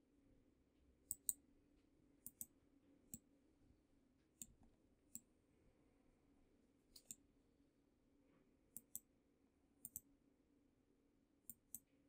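Computer mouse buttons clicking, sometimes singly and often in quick pairs, roughly once a second, over a faint steady low hum.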